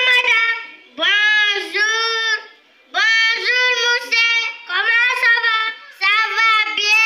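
A young girl singing solo into a microphone without accompaniment, in short held phrases with brief pauses between them.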